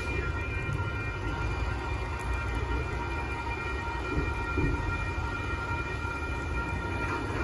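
Union Pacific sand train, a long freight, rolling past with a steady low rumble, and steady high ringing tones over it.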